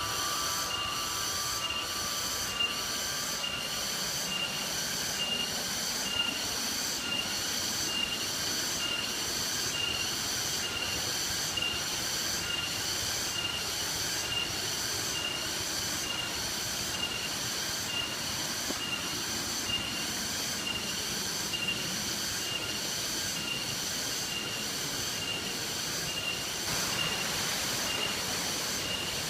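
Steady rush of the Sedinding waterfall under a high-pitched, pulsing insect drone that repeats about once a second.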